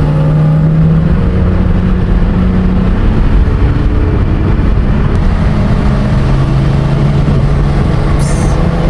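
BMW M3 race car engine running loud at fairly steady revs, holding nearly one pitch throughout, with a brief high hiss near the end.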